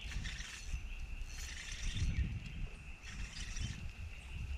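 Open-air lake ambience: wind rumbling on the microphone under a steady high insect drone, with three brief hissing rustles about a second and a half apart.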